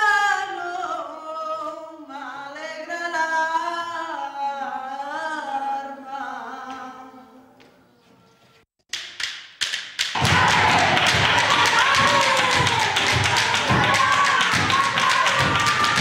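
A solo voice singing slow, drawn-out flamenco-style notes without accompaniment, fading away about eight seconds in. After a short pause, a group of children starts fast rhythmic flamenco handclapping (palmas) with thuds, and singing over it.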